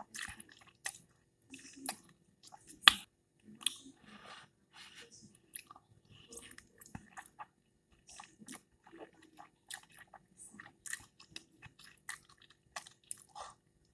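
Close-up eating sounds of a person chewing a mouthful of noodles: wet chewing and lip smacks, a run of short irregular clicks with a sharper one about three seconds in.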